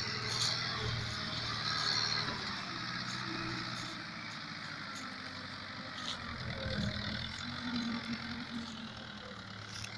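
Fiat 640 tractor's diesel engine running steadily while pulling a trolley loaded with sugarcane.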